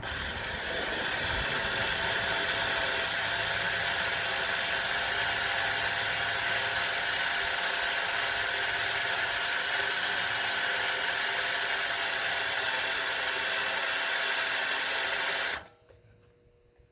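Electric drill running steadily under load, boring out a steel frame rivet on an M35A2 truck frame, then stopping abruptly near the end once the bit is through the frame section.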